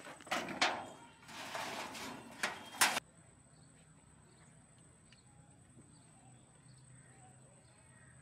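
A few sharp knocks with a brief scraping rustle between them. The sound drops abruptly to near silence about three seconds in, leaving only faint ticks.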